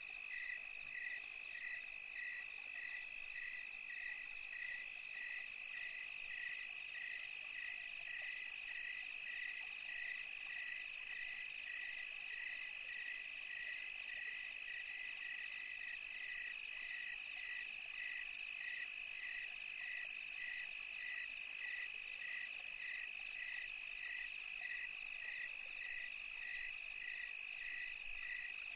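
Night-time chorus of calling insects: a continuous high trill with a regular chirp repeating a little under twice a second.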